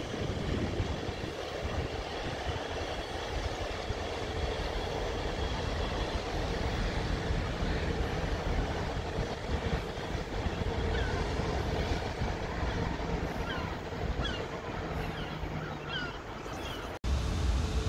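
Passenger train running past, a steady rumble of wheels on rail with a faint steady hum. Birds chirp several times in the second half, and the sound changes abruptly near the end.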